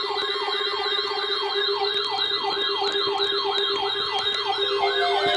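Electronic yelp-style siren, its pitch sweeping rapidly up and down about four times a second over a steady lower tone.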